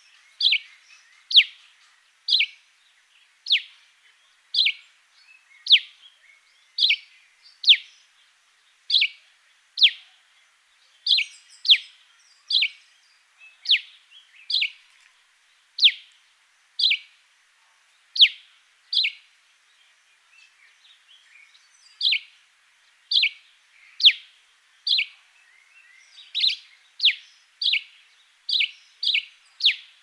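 Cape sparrow calling: a long series of short, sharp chirps, about one a second, each sliding down in pitch. After a brief pause about two-thirds through, the chirps come quicker near the end.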